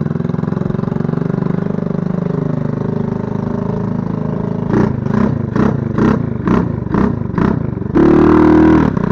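110 cc four-stroke single-cylinder mini quad engine, fitted with a bigger aftermarket exhaust, idling steadily and then blipped about eight times in quick succession, roughly two revs a second. Near the end a louder, steady engine note comes in at a cut.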